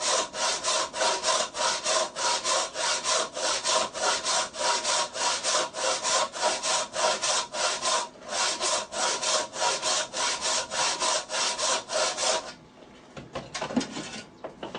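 Hand saw cutting wood in quick, even back-and-forth strokes, about three a second, with a faint ringing from the blade; a brief break about eight seconds in, and the sawing stops near the end. The saw is scoring a shallow kerf along the marked line as a guide for cutting a tenon shoulder.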